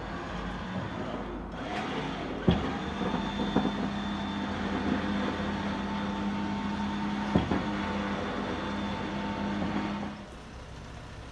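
Recovery truck's loading machinery running with a steady hum while the salvage car is loaded onto it. Three sharp knocks come through the hum, and the hum stops about ten seconds in.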